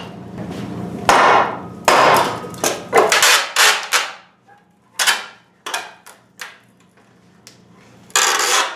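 Hammer striking a wall being demolished: about ten irregular heavy blows, each with a short noisy crash as the wall material breaks.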